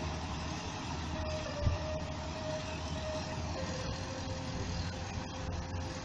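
Combine harvester running as it cuts grain: a steady engine and threshing drone with a thin high whine that steps down a little in pitch about halfway through. A single short thump comes about a second and a half in.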